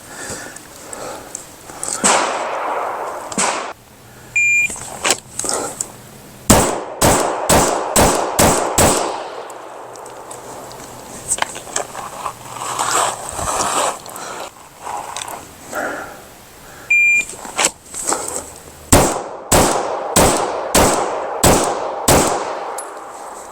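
A shot timer's short electronic beep, then about two seconds later a fast string of pistol shots, each one sharp with a short echo. This happens twice: one string of about six shots, then a second, slightly longer string.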